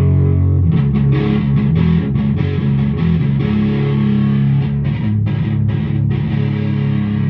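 Electric guitar played through the germanium fuzz channel of an Evil Twin fuzz pedal into a clean amp: thick, sustained fuzzed chords and notes that change about every second, with the fuzz at maximum.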